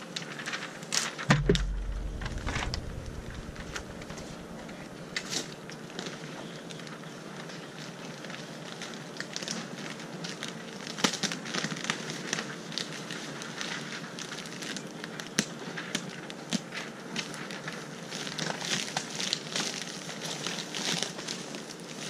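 Clear plastic repair patch and greenhouse poly film crinkling and crackling as the patch is handled and pressed over a hole in the film, with a low thump about a second in.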